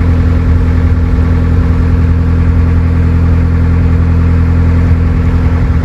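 Narrowboat's inboard diesel engine running steadily at cruising speed: a loud, even, unchanging hum.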